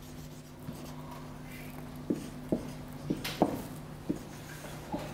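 Marker pen writing on a whiteboard: a run of short squeaks and taps, about six of them starting some two seconds in, over a steady low hum.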